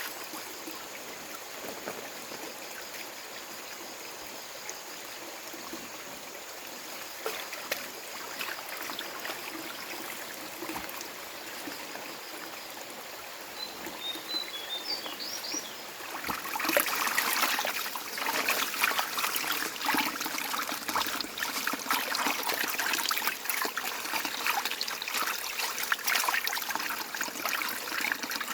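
Running water trickling steadily, with a few short high chirps a little before halfway. A little past halfway the water becomes louder and busier, with many small splashes and crackles.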